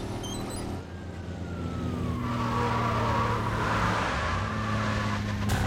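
Fire truck engine running steadily as the truck drives off, with a single wail falling in pitch from about a second in. A sharp, loud sound comes in near the end.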